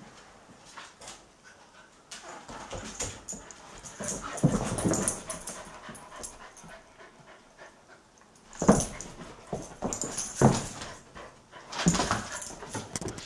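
A rough collie and a Belgian Tervuren puppy playing and vocalising, with three short, loud outbursts in the second half.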